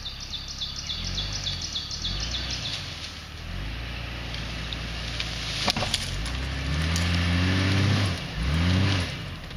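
Jeep Cherokee engine running under load while pulling on a tree, revving up in two rising pulls in the last few seconds. Birds chirp rapidly over the first few seconds, and there is a sharp crack about six seconds in.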